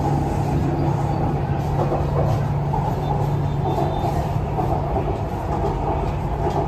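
Chennai Metro train running, heard from inside the carriage: a steady rumble with a low hum.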